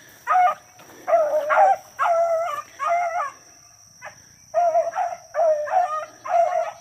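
Hounds baying on a rabbit's trail: a steady string of short, pitched bawls that rise and fall, with a brief lull a little past halfway.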